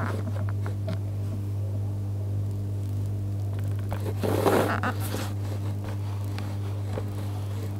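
A steady low electrical hum, with a brief loud scraping rustle about four and a half seconds in and a few faint clicks.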